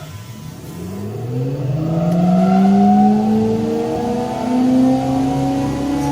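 Wood jointer's motor and cutterhead spinning up after switch-on: a hum that grows louder over the first couple of seconds, its pitch rising steadily throughout.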